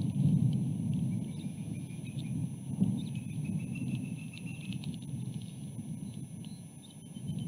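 Wind buffeting an outdoor nest camera's microphone: a low, uneven rumble that swells and eases, dropping away a little before the end. Faint thin whistle-like tones and a few light ticks sit high above it.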